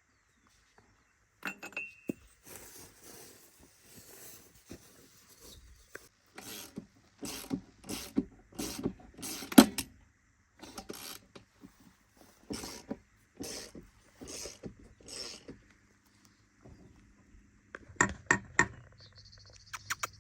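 A long run of irregular metallic clicks, clanks and knocks, as of tools or metal parts being handled, with a short pause before a last cluster near the end.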